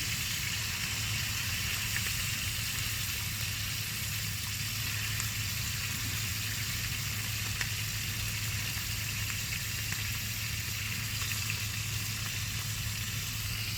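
Fish frying in a hot pan with butter, a steady, even sizzle, with a low steady hum underneath.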